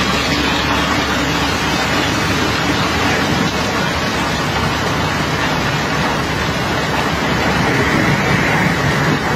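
A steady engine running under a loud, even rush of water jetting from a hose and washing across the deck.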